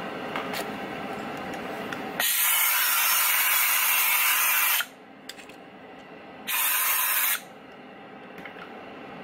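Compressed air blowing dust out of an opened computer mouse's shell and circuit board: two hissing blasts, a long one of about two and a half seconds and then a short one under a second, with light handling noise around them.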